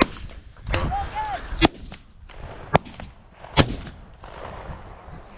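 Four 12-gauge shotgun shots fired with birdshot at a flushed pheasant. They come unevenly spaced over about three and a half seconds, the first at the very start.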